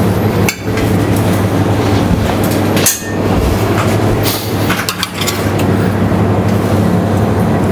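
Steady mechanical hum of commercial kitchen ventilation, with a few short knocks of utensils against the steel trays and counter.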